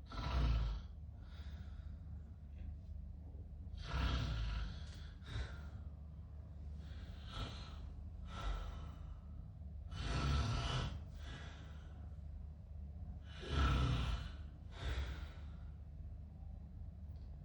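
A sleeping man breathing noisily, with each breath in and out heard as a soft rushing burst in pairs about every three seconds.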